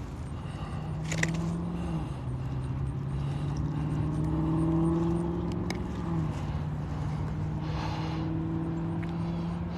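A steady low motor hum that drops in pitch about two seconds in and rises again about six seconds in, with a few faint clicks.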